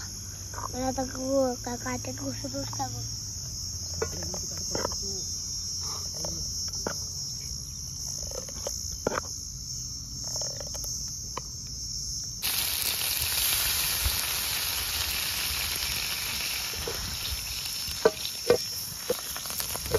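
Crickets chirping in a steady, high-pitched drone, with scattered small clinks and taps of cooking utensils. About twelve seconds in a steady hiss cuts in, and near the end come a few sharp taps and scrapes as a cloth wipes oil over the iron tawa.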